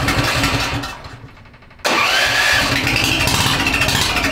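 Turbocharged, fuel-injected Predator 420cc single-cylinder engine running. It dies away about a second in, then is running again from just under two seconds in.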